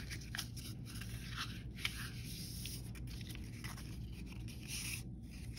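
Faint rustling and crinkling of a strip of coloured paper being pressed along a lengthwise fold and handled, with scattered small ticks over a low steady hum.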